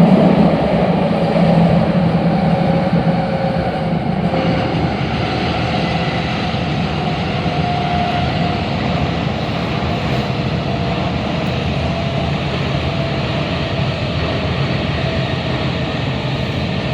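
MTR K-Train electric multiple unit running at speed: a steady rumble of wheels on rail and running noise, with a few faint humming tones drifting slightly in pitch.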